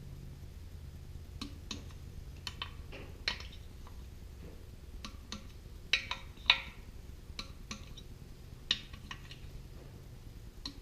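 Adjustable torque wrench and socket on a Kohler K-series engine's cylinder head bolts, as each bolt is rechecked at the set torque of 30: about ten scattered sharp metallic clicks and taps, the loudest two about six seconds in, over a steady low hum.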